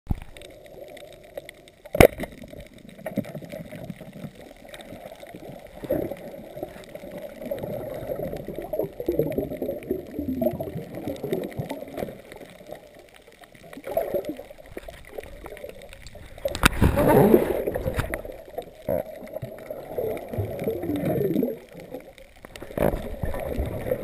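Muffled underwater sound from a camera in a waterproof housing moving through seawater: a wavering gurgle and rush of water. A sharp click about two seconds in, and a louder rushing surge of water a little past two-thirds of the way through.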